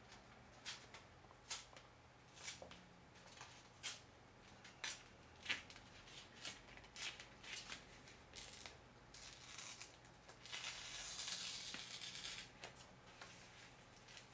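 Faint rustling and crinkling of a plastic protective film and its paper backing being handled, in many short scraping and crackling strokes, with one longer steady peeling sound for about two seconds near ten seconds in as the film comes off its backing.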